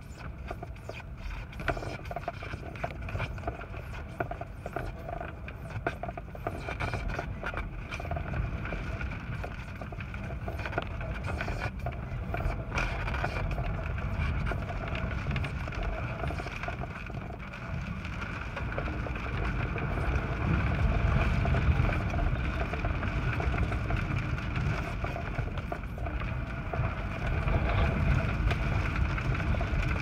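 Gusting wind buffeting a light airplane parked with its engine off, heard from inside the cabin as a low rumble that grows louder in the second half. Raindrops tap on the windshield early on, over a faint steady whine.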